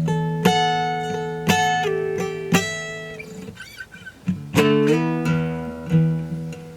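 Acoustic guitar played solo: chords and picked notes struck about once a second and left to ring, with a short lull near the middle.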